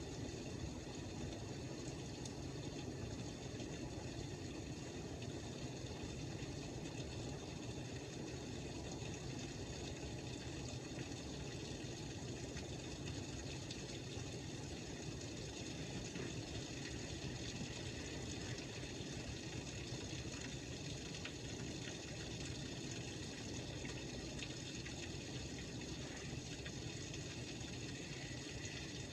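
Steady rain falling during a thunderstorm, an even hiss and patter with no thunderclap.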